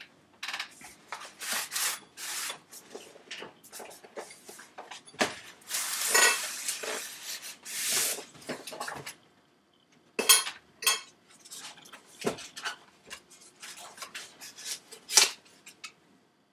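Someone rummaging among objects and handling them: an irregular run of clatters, clinks and rustles, with a few sharp louder knocks about ten, twelve and fifteen seconds in.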